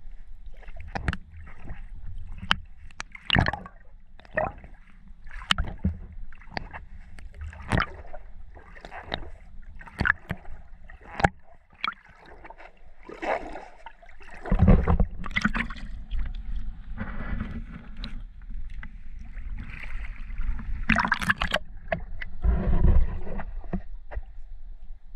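Shallow water sloshing and splashing as someone wades and works a scoop net over a crab. Many sharp clicks and knocks are mixed in, with a low rumble underneath.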